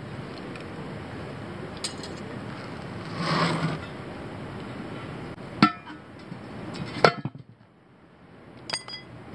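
Steel tire irons clinking: three sharp metallic clinks with a short ring, the loudest about seven seconds in, over steady background noise. A brief scuffing rush comes about three seconds in as the tire and wheel are handled.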